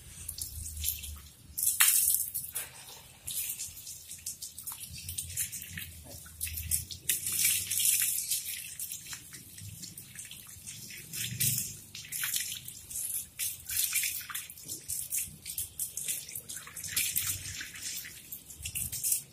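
Water splashing and running off a dog's wet coat onto a tiled floor as it is rinsed with a hose, in irregular gushes.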